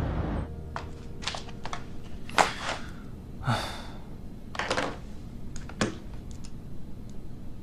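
Background music ends just after the start. Then come about ten scattered light clicks and taps, with a few louder knocks, from small objects being handled at an office desk.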